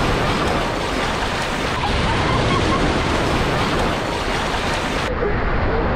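Shallow surf washing and foaming around a bulldog wading through it, a steady loud rush of water, with wind on the microphone.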